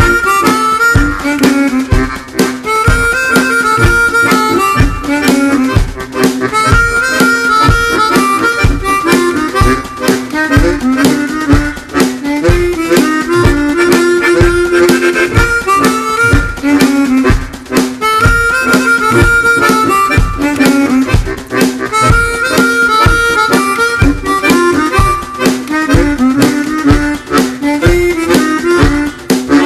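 Harmonica ensemble music: a harmonica melody over a steady beat.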